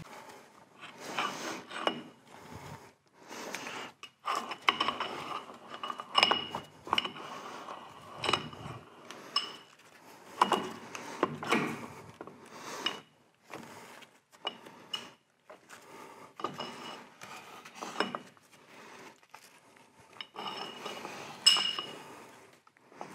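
Irregular metal clinks, knocks and scraping as the parts of a Monarch lathe's spindle clutch are worked loose and pulled off the shaft by hand. Some knocks leave a short metallic ring, and the loudest knock comes near the end.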